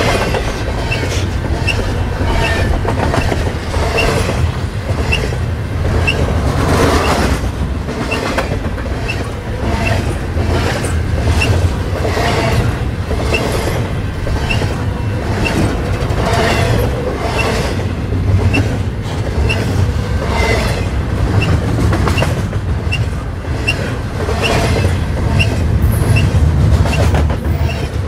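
Double-stack intermodal freight train's well cars rolling past at speed: a steady low rumble with rhythmic clickety-clack of wheels over rail joints and regular short high squeaks. The sound starts to fall away at the very end as the last car passes.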